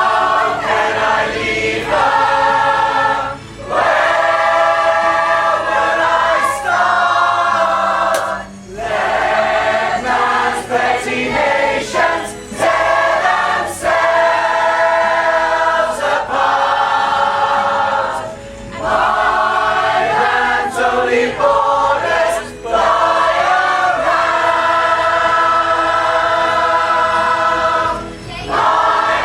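A pop choir singing, many voices together in sustained phrases with brief pauses between them.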